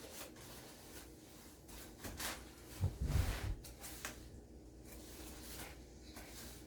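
A utensil scraping and stirring a thick butter, sugar and egg mixture in a mixing bowl by hand, in short intermittent strokes, with a few louder knocks against the bowl about three seconds in.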